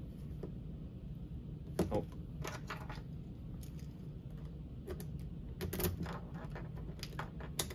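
Clicks and light knocks of plastic wiring connectors and cables being handled and plugged together on an electric motor controller's wiring harness, in scattered clusters about two seconds in, around six seconds and near the end.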